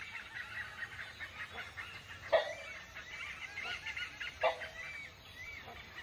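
Rufous-necked hornbill giving two short honking calls about two seconds apart, over a background of high chirping from other forest birds.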